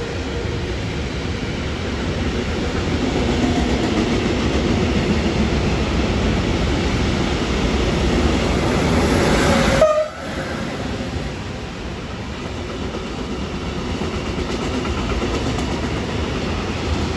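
Freight trains rolling through the station: a Lokomotion Class 186 electric locomotive hauling intermodal wagons loaded with containers and lorry trailers, with steady wheel rumble and clatter on the rails. The sound grows louder for about ten seconds, then drops abruptly and carries on quieter.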